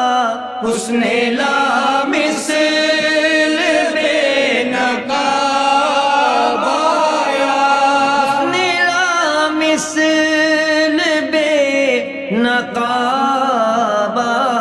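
A man singing an Urdu devotional qasida solo, drawing out long, ornamented notes whose pitch wavers and slides.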